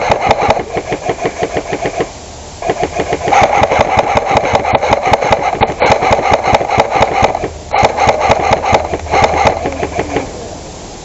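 Airsoft electric rifle firing on full auto: a fast mechanical rattle of shots in long bursts with short breaks, tailing off near the end.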